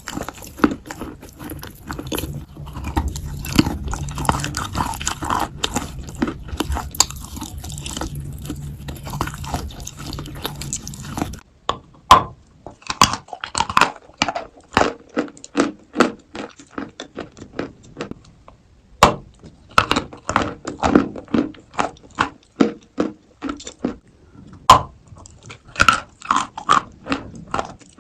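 Close-up biting and chewing of dry, powdery Turkestan white edible clay: repeated sharp crunches and chewing. About eleven seconds in, a low background hum drops away and the crunches become more separate and distinct.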